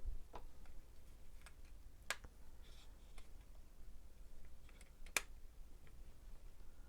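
Scattered light clicks and taps of small parts being handled inside an opened TRS-80 Deluxe Joystick, while a piece that has come unhooked is worked back into place. The loudest click comes about five seconds in, another about two seconds in.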